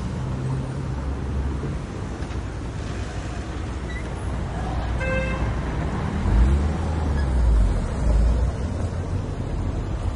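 Street traffic with cars passing; the engine and tyre rumble is heaviest from about six to eight and a half seconds in. A short car horn toot sounds about five seconds in.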